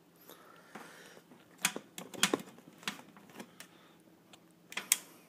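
Scattered clicks and knocks of handling as the power cord is unplugged and plugged back into an open computer power supply. The clicks are irregular, with a cluster around two seconds in and a pair near the end.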